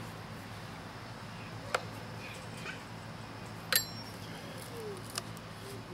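A few light metal clicks from a screwdriver working the chain-tensioning screw on a Stihl MS 290 chainsaw's bar as the chain is tightened. The sharpest click, with a brief ring, comes about two-thirds of the way through.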